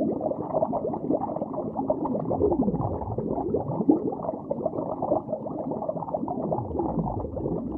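Muffled, bubbling, watery-sounding intro sound effect with repeated sweeping pitch glides that fall and rise.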